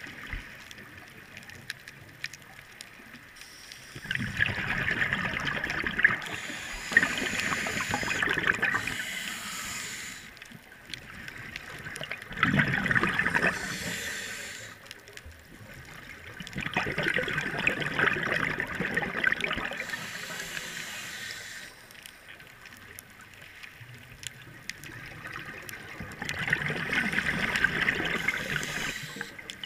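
Scuba regulator exhaust bubbles heard underwater: bubbling in about four long bursts a few seconds apart, one per exhaled breath, with quieter stretches between breaths.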